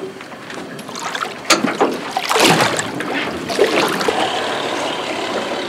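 Water sloshing and splashing beside a small boat, coming in irregular surges.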